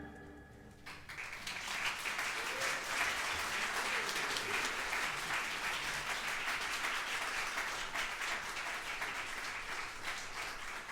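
Audience applauding after the piece ends: the last notes of the music die away, then clapping starts about a second in and carries on steadily, easing slightly near the end.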